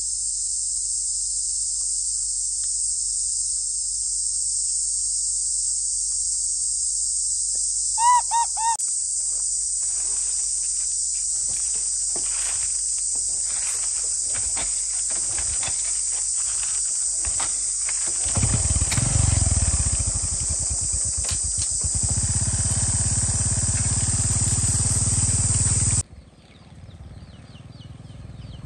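Steady high-pitched insect chorus. About a third of the way in come three short high calls, then scattered clicks and rustling, and in the second half a loud low rumbling noise. Everything cuts off abruptly shortly before the end, leaving faint noise.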